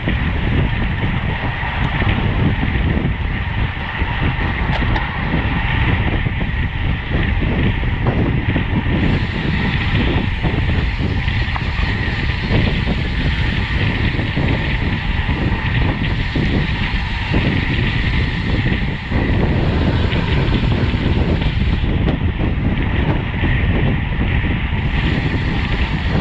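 Wind buffeting a bicycle-mounted camera's microphone at road-race speed, a loud steady rush with heavy low rumble.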